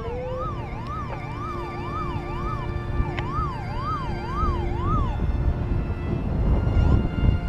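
Wind buffeting the microphone with a heavy rumble that grows louder near the end. Over it a siren-like tone sweeps up and down about twice a second until about five seconds in, over a few steady held tones.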